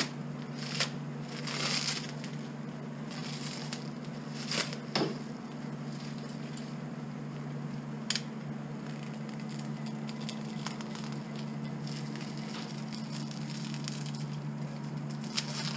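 Knife cutting plastic wrapping off a new rake handle: scattered crackles, crinkles and small clicks, a longer scraping crackle about two seconds in, over a steady low hum.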